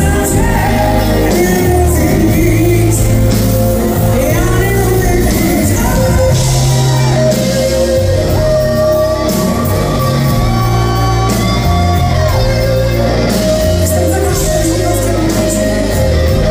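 Live rock band playing, with a woman singing over drums, bass and guitar, heard in a large concert hall. It is loud and steady, with a long held note in the middle.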